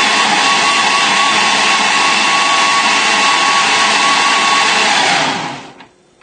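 Countertop blender (liquidizer) running steadily at full speed, blending soup, with a steady whine over the noise of the motor and churning liquid. About five seconds in it is switched off and winds down quickly to a stop, followed by a few small clicks.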